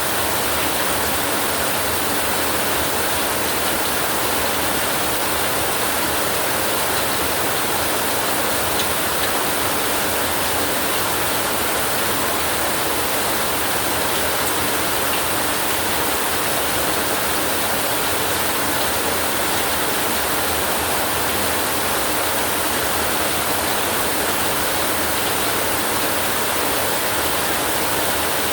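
Steady rain falling, an even hiss with no break or change in strength.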